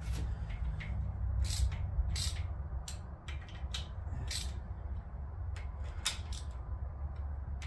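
Hand ratchet clicking in short irregular runs as bolts are run down hand tight, with light metal knocks, over a steady low hum.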